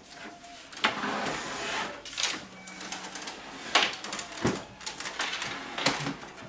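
Handling noises as objects are moved about at a desk: several sharp knocks and clicks with scraping and rustling in between.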